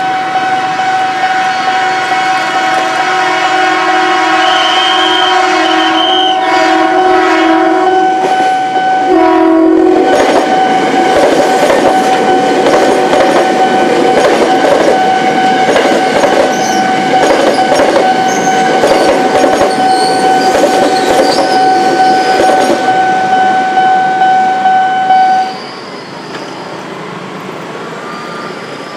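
Train horn sounding the long 'semboyan 35' signal: one steady blast held for about 25 seconds, with some of its lower notes dropping out about nine seconds in. From about ten seconds the train's wheels clatter over the rail joints as it passes, and the horn cuts off suddenly near the end, leaving the quieter rumble of the train.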